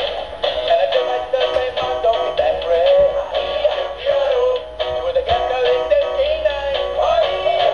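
Singing and dancing plush toy dog playing a song: a synthetic-sounding singing voice over a steady beat.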